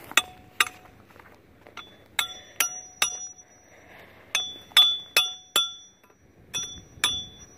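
A hammer striking a steel stake to drive it into the ground, a series of sharp blows in short groups of two to four, each leaving a bright metallic ring.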